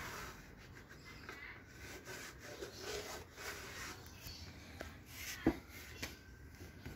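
Polishing cloth rubbing back and forth over a stand-up scooter's aluminium deck, a soft, uneven rubbing hiss. A single sharp knock about five and a half seconds in.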